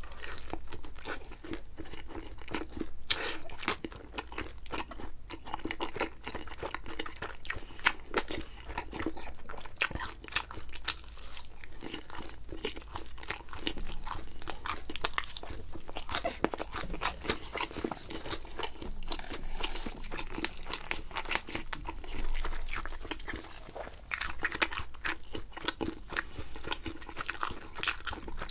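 Close-up eating sounds of thin-crust pizza: continuous chewing with many quick, irregular crunches and bites.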